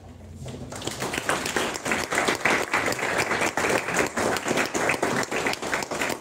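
Audience applauding, with many claps starting a little under a second in. The applause greets the end of a talk.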